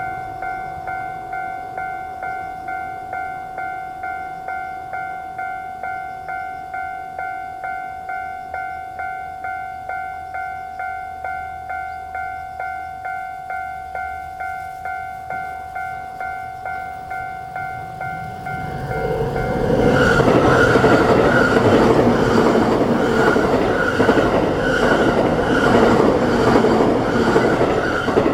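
Japanese electronic level-crossing bell dinging steadily in an even rhythm. About 19 seconds in, a train arrives and passes through the crossing, its wheels clattering loudly over the rails until near the end, while the bell keeps ringing under it.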